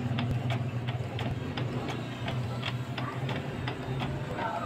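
Epson L120 inkjet printer printing a test page: a steady motor hum with regular clicks about three times a second as the paper feeds out.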